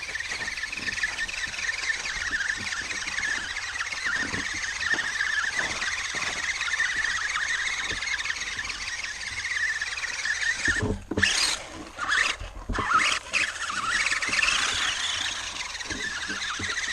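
RC mud truck's electric motor whining as the wheels spin in mud. The pitch wavers with the throttle, cuts out briefly with a few low thuds about two-thirds of the way in, then comes back and rises.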